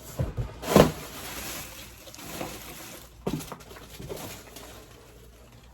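Rustling and light knocks of packaging being handled inside an opened shipping box, with the loudest rustle about a second in.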